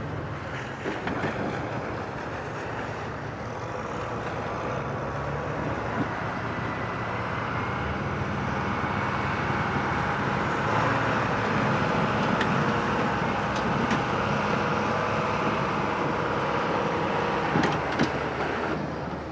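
Engine of a heavy snow-clearing machine running steadily under load while it pushes a pile of snow. A noisy hiss builds up over the engine hum from about the middle, and a few sharp knocks come near the end.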